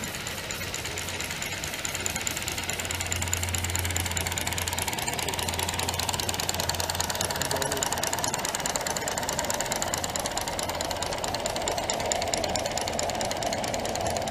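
2-inch-scale live-steam Shay locomotive hauling a log train past, its exhaust beating in a rapid, even rhythm as the train rolls along the track.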